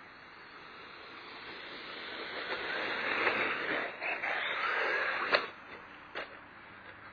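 Electric RC monster truck driving across loose dirt, its motor and tyre noise growing louder for a few seconds. About five seconds in there is a sharp knock as it hits the ground off a jump, then a smaller knock a second later.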